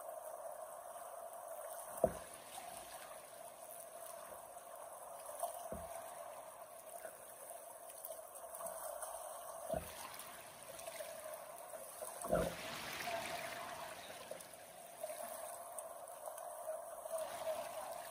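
River water flowing and trickling steadily, with four sharp knocks spread through it, the first and loudest about two seconds in.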